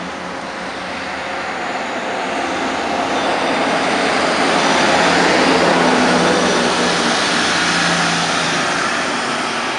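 Heavy trucks driving past on a city street: a box truck and then a rear-loader garbage truck. Engine and tyre noise swells to a peak about halfway through and eases off slowly.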